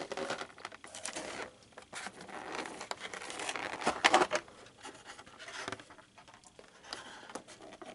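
Packaging rustling and crinkling as it is handled and pulled apart, with small scratchy clicks. It is busiest in the first half and quieter after that.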